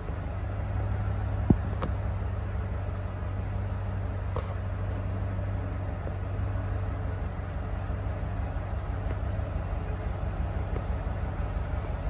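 1990 Ford F-250 pickup idling steadily, heard from behind at the exhaust end as a low, even rumble. A single sharp click comes about one and a half seconds in.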